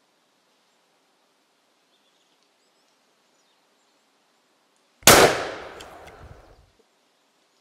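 A single shotgun shot from an over-and-under, about five seconds in, its report trailing off over about a second and a half.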